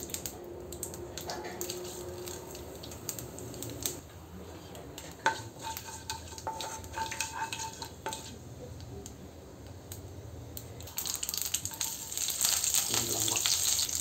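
A spatula scraping and stirring seeds in hot oil in a non-stick kadai, with light clicks. About eleven seconds in, curry leaves go into the oil and it breaks into a loud sizzle, the tempering step of a curry.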